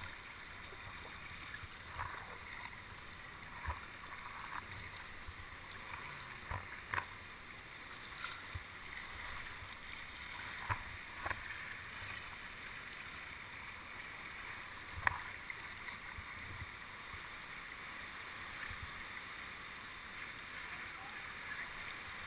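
Water slapping and dripping around a sea kayak, short irregular splashes every second or two over a steady hiss of sea and wind; the sharpest splash comes about fifteen seconds in.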